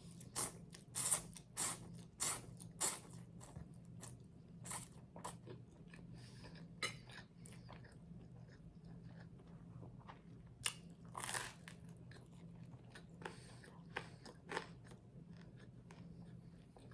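Close-up biting and chewing of crunchy garlic bread: a quick run of crisp crunches for the first few seconds, then scattered crunches with a louder bite partway through, over a faint steady low hum.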